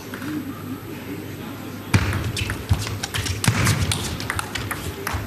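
Table tennis rally: the celluloid ball clicking sharply off the bats and table in quick succession, starting about two seconds in, with low thuds beneath.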